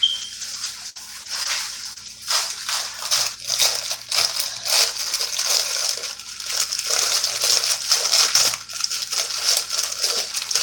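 Thin plastic bag crinkling and rustling in irregular bursts as it is handled and opened close to the microphone.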